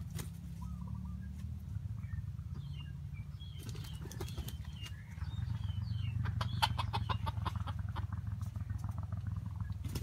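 Small wild birds chirping in short, quick notes over a steady low rumble, with a brief run of rapid fluttering ticks about six to seven seconds in.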